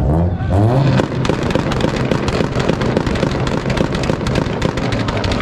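Car engine revving up and then held on a two-step launch-control rev limiter: the revs climb briefly, and about a second in the exhaust breaks into a rapid, continuous string of pops and bangs.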